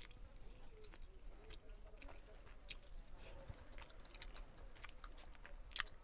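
A person chewing a mouthful of rice, fried fish and dal, with faint irregular wet smacks and mouth clicks.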